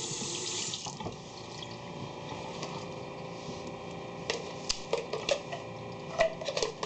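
Kitchen tap running as seasoning is rinsed off hands, shut off about a second in. A few light clicks and knocks follow in the second half.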